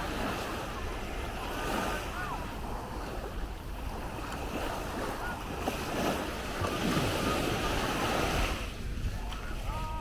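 Small Baltic Sea waves breaking and washing up the sandy shore, swelling louder for a couple of seconds about two-thirds of the way through, with wind on the microphone and distant voices of beachgoers.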